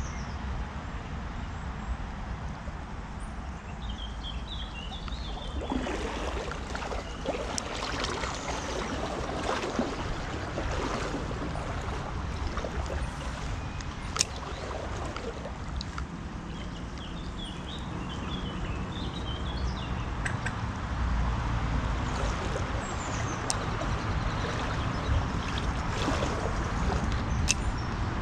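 River water rushing steadily, the river running high after a week of rain, with a low rumble and a few sharp clicks.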